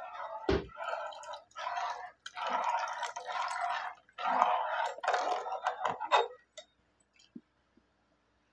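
Liquid in a cooking pot sloshing and bubbling in a run of bursts for about six seconds, with a thump about half a second in, then only a few light clicks.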